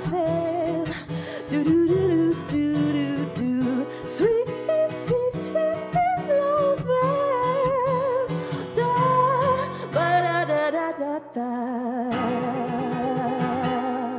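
A woman singing over a strummed acoustic guitar, closing the song on a long held note with vibrato that stops sharply at the very end.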